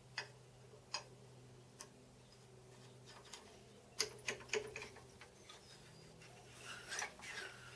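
Light, scattered clicks and taps of a metal workpiece being handled while checking its fit: three single clicks, then a quick cluster about four seconds in and more near the end, over a steady low hum.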